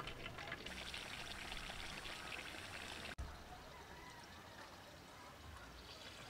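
Pork pieces deep-frying in hot oil in a covered wok: a faint, steady sizzle. It drops out briefly about three seconds in and goes on quieter.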